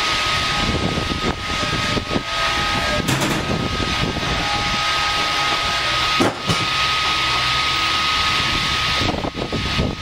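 Triumph 900 band sawmill running steadily with a constant high whine, not yet cutting, with a few knocks as the log is handled onto the rail bed.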